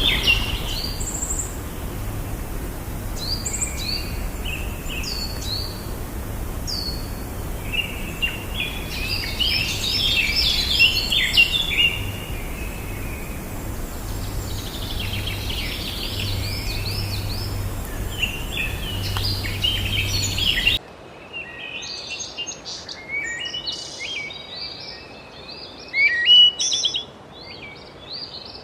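A chorus of birds giving many short chirps and whistles, over a steady low rumble. About three-quarters of the way through the rumble cuts off suddenly and the birdsong continues over a quieter background.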